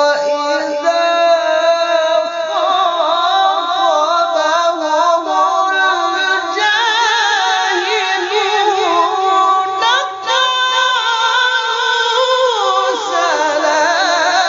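Male Quran reciter (qari) chanting in a very high register: a long, ornamented melismatic phrase with a constantly wavering pitch, gliding downward near the end.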